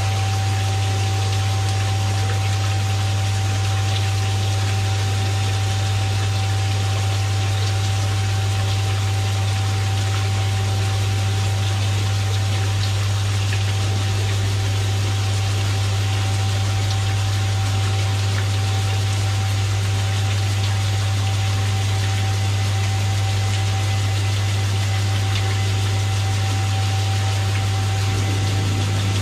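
FNL 220G CNC turn-grind machine grinding a part in its chuck: a steady low hum with a constant higher tone over the hiss of coolant spraying on the wheel and workpiece.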